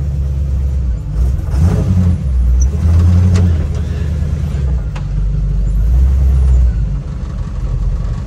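Small-block Chevy 350 V8 running under load, heard from inside the cab, swelling louder twice as it pulls the truck along against dragging brakes.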